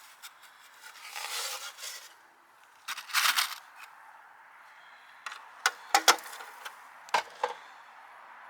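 Hand-tool work: two stretches of scraping, then a run of sharp clicks and taps in the second half.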